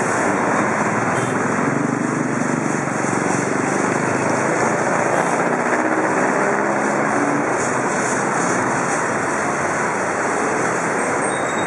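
Steady din of busy street traffic: jeepney and car engines running as they pass close by.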